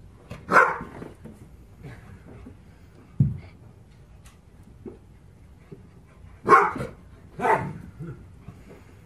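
Dog barking three times: once about half a second in, then twice a second apart near the end, with a single dull thump in between.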